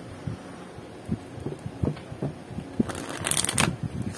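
A deck of oracle cards being handled and shuffled by hand. For the first few seconds there are soft, dull taps as the deck is knocked and squared, then about three seconds in a short rustle of cards being shuffled.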